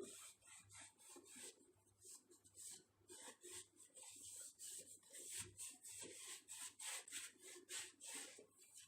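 Hand scrubbing the grease-coated inside of a microwave oven: quiet, rhythmic rubbing strokes, about two to three a second.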